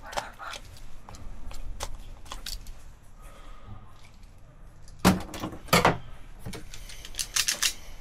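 Small clicks of tools and wire being handled, then loud sharp snaps about five and six seconds in and a quick run of snaps near the end, as a hand-squeezed automatic wire stripper (Iwiss ICP-338) clamps and strips a wire.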